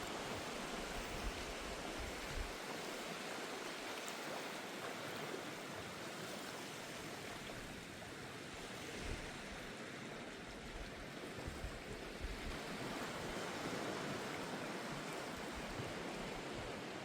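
Surf washing steadily on the shore, an even rushing noise with no breaks.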